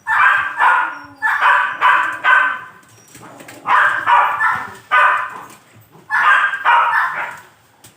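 A dog barking repeatedly in three quick bouts of several barks each, with short pauses between the bouts.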